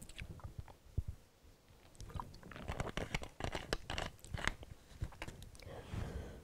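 Quiet mouth and throat noises and scattered soft clicks from a speaker with a cold catching her breath between coughing fits, with a soft breath near the end.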